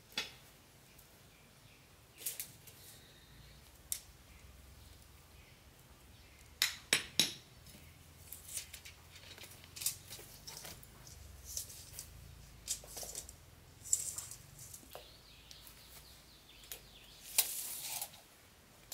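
Intermittent light clicks, taps and scrapes of hands-on work, with three sharp clinks in quick succession about seven seconds in and a longer scrape near the end.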